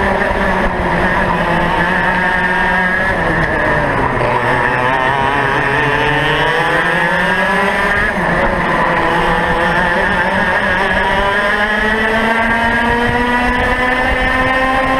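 Two-stroke racing kart engine heard from on board. It falls in pitch over the first four seconds as the kart slows through a corner, then climbs smoothly and steadily under acceleration along the straight, with wind and road rumble underneath.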